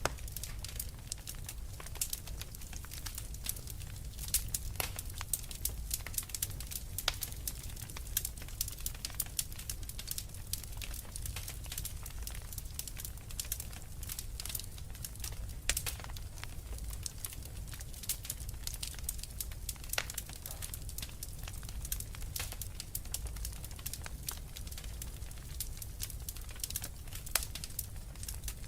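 Wood fire crackling in a fireplace: many irregular sharp snaps and pops over a steady low rumble.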